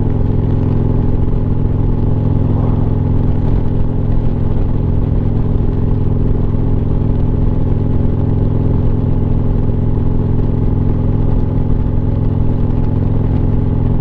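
Harley-Davidson Street Glide's V-twin engine running steadily at cruising speed, a constant low drone with no change in pitch.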